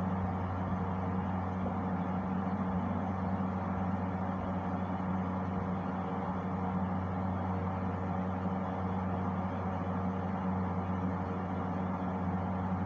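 A steady low hum that does not change, with no separate bursts or breaks.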